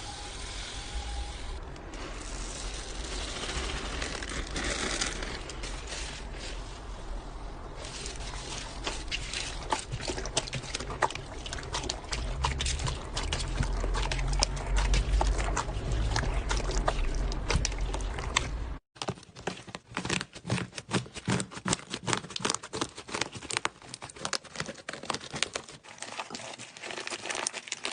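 Slime being squished and pressed by hand, giving dense little crackles and pops. There is a brief break about 19 seconds in, after which the pops come sharper and more spaced out.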